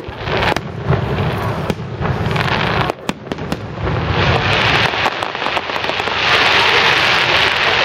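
Fireworks display: aerial shells bursting with sharp bangs through the first three seconds, then a dense, continuous crackling that grows louder over the last two seconds.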